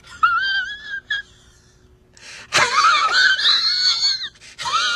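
A man crying in high, squeaky, wavering wails, in several drawn-out sobs with short breaks between them.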